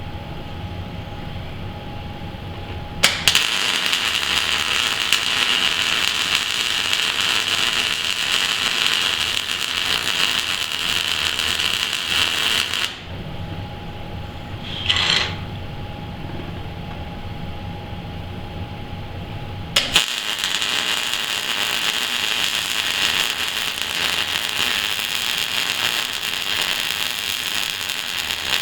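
A shop power tool running in two long spells, each starting abruptly with a click and giving a steady hissing whir, with a low hum between them.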